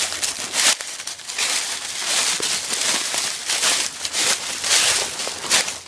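Footsteps of a person and a small dog crunching and rustling through thick dry fallen leaves, in an uneven run of about two crunches a second.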